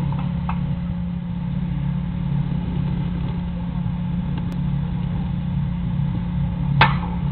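Steady low outdoor background rumble with a faint hum, and a single sharp crack near the end.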